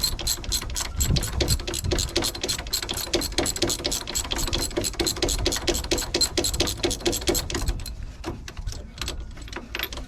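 Ratchet wrench clicking rapidly and evenly as it winds out an 18 mm brake caliper carrier bolt; the clicking thins to a few scattered clicks near the end.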